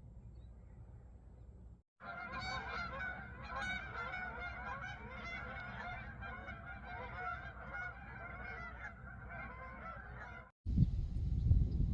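A flock of birds calling, many pitched calls overlapping, starting about two seconds in and cutting off abruptly near the end. A louder low rumble follows the cut.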